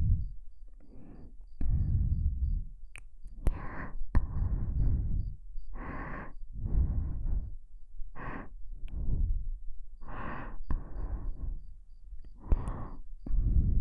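Slow, close-miked breathing into a binaural dummy-head microphone: a steady series of inhales and exhales about one a second, the breath puffs hitting the mic with a low rumble. There are a few short clicks between breaths.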